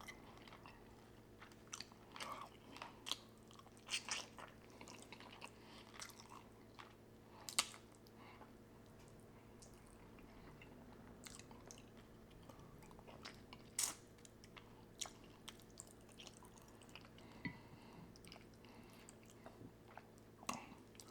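Close-miked chewing of tender stewed turkey wing meat: soft, wet mouth clicks and smacks at irregular intervals, faint overall, with a couple of louder smacks about a third and two thirds of the way in.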